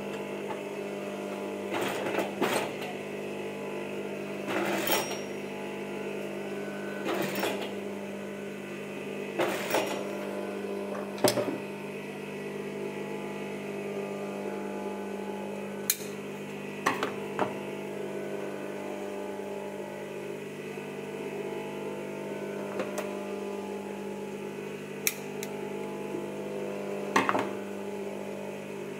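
Industrial sewing machine (Siruba) with its motor humming steadily, broken every couple of seconds by short bursts of stitching and a few sharp clicks as sequin trim is sewn on.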